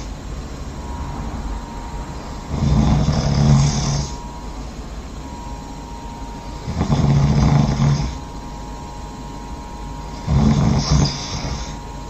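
A person snoring loudly in a slow, regular rhythm: three snores about four seconds apart, each lasting a second or so, with quieter stretches between them.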